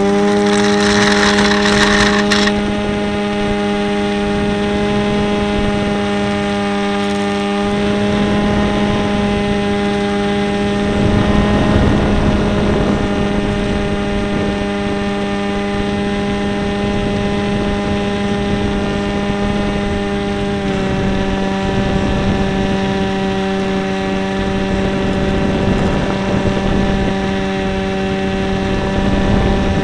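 RC airplane's motor and propeller running at a steady high throttle, heard from the plane's onboard camera, with wind rushing over the microphone. A rough rushing noise joins it for the first couple of seconds.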